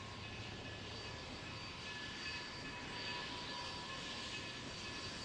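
Distant D&SNG K-36 class 2-8-2 Mikado steam locomotive No. 482 getting its passenger train under way: a faint, steady rumble and hiss, with a few thin steady high tones over it.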